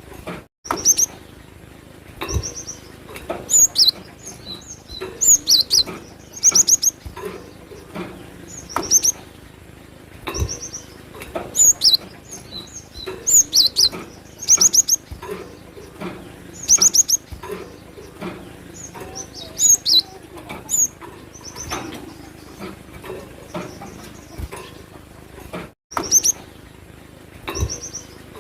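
Cinereous tit (glatik batu) singing loud, repeated short phrases of rapid high chirping notes every second or two, with a few soft knocks in between.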